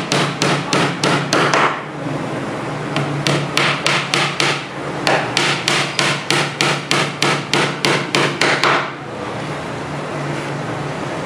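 Hammer tapping a small nail into a veneered wooden shelf panel in quick light strokes, about three to four a second. There are two runs of taps with a pause of about a second between them, and the hammering stops about nine seconds in, leaving a steady low hum.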